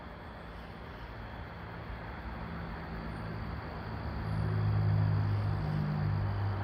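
A low, steady engine-like drone comes in about two seconds in and grows louder, over a constant background hiss.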